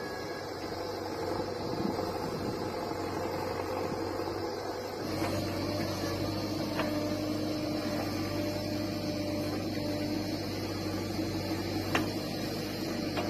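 JCB 3DX backhoe loader's diesel engine running steadily while the backhoe digs and loads soil, with a sharp knock near the end.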